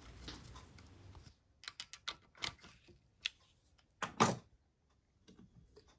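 Light metallic clicks and taps of a hand tool on the small screws of a Honda XL175 camshaft sprocket as they are fitted and tightened. The taps come scattered and irregular, and the loudest are a couple of knocks about four seconds in.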